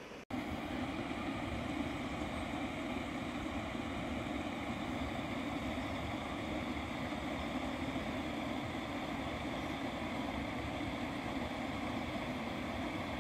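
Steady rushing background noise with a low rumble that begins right after a brief dropout near the start and stays even throughout.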